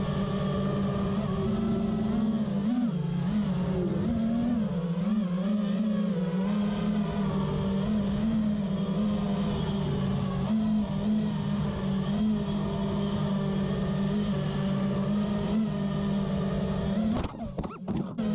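FPV racing quadcopter's brushless motors and propellers whining steadily, the pitch wavering up and down with the throttle. About a second before the end the whine breaks up with a few sharp knocks and brief drop-outs as the drone hits branches.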